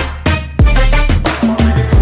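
Background music with a heavy, steady bass beat.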